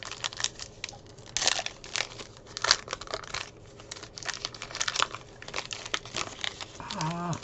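Foil wrapper of a 2020 Leaf Draft football card pack being torn open and crinkled by hand: an irregular run of crackling and tearing with a few louder rips.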